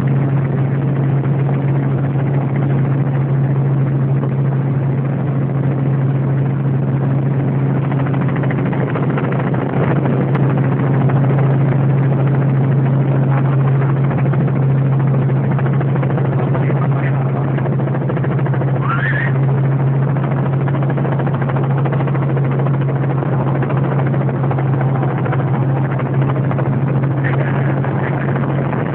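Helicopter in flight: a loud, steady drone of engine and rotor with a constant low hum, unchanging throughout.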